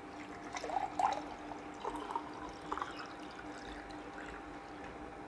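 Water poured from a plastic bottle into a drinking glass, splashing and trickling unevenly for about two and a half seconds before it stops.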